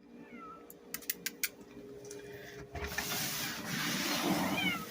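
Domestic cat meowing: a short falling meow near the start and another near the end. About a second in there are a few sharp clicks, and in between comes a longer noisy rustle, the loudest part.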